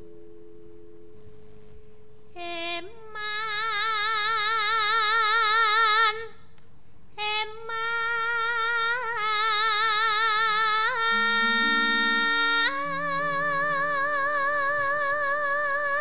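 A Javanese sindhen (female gamelan singer) singing long held notes with a wide, even vibrato and slides between pitches, over soft sustained gamelan tones. The voice enters a couple of seconds in and breaks off briefly about halfway through before continuing.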